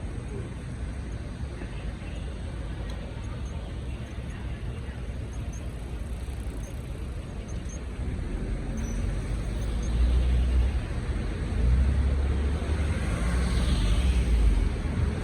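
Downtown street traffic, with a heavy vehicle passing close: a low rumble grows louder over the second half.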